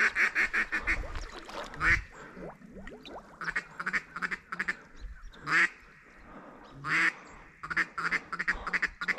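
Duck quacking: quick runs of short quacks, about five a second, broken by a few single longer, louder quacks.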